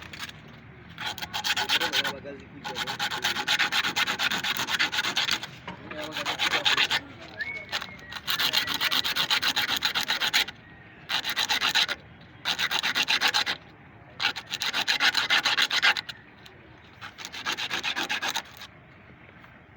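Abrasive rubbing, like sandpaper or a file worked fast over a surface, in about eight runs of one to three seconds with short pauses between.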